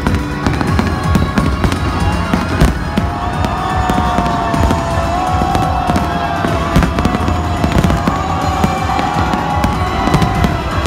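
Aerial firework shells bursting in a dense, continuous barrage of bangs, with one especially sharp bang a few seconds in.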